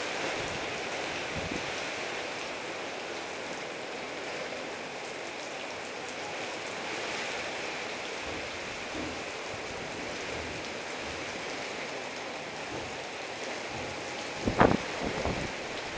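Heavy rain pouring down in a steady downpour. Near the end, a quick cluster of sharp thumps is the loudest thing heard.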